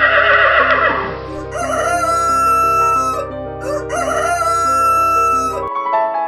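Rooster crowing several times over soft background piano music. The calls stop near the end and the piano carries on alone.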